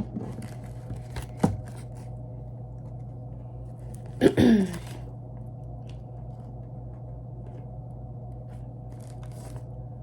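Handling noises as a packaged item is taken out and sorted: a few sharp clicks and taps, then a louder brief scrape about four seconds in, over a steady low hum.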